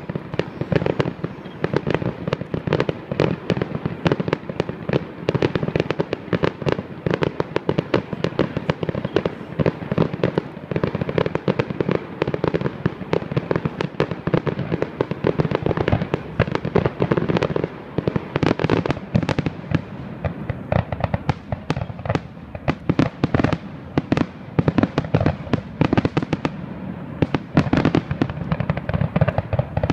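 A fireworks display going off: a rapid, unbroken barrage of bangs and crackling from aerial shells bursting.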